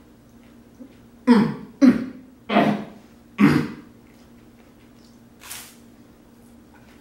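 A man coughing four times in quick succession while eating a dry rice cake dusted with protein powder, then a short breath about two seconds later.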